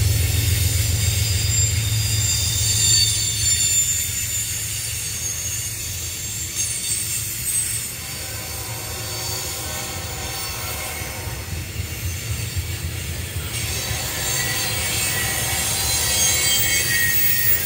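A loaded freight train of ethanol tank cars rolling past with a steady heavy rumble, and a thin, high-pitched squeal from the wheels coming and going over it.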